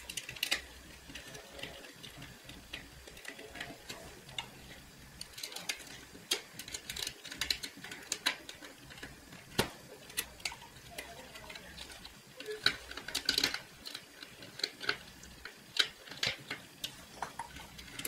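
Small, irregular clicks and taps of a screwdriver and fingers working wires into a transmitter board's screw terminals inside a plastic switch enclosure.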